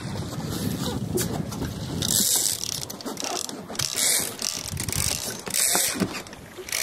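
Fishing reel clicking and whirring in spells while a hooked fish is fought close to the boat.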